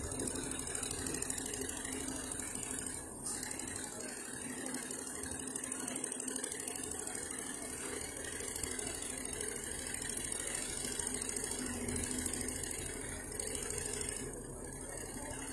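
An engine running steadily under a general outdoor din, with faint voices of people in the background.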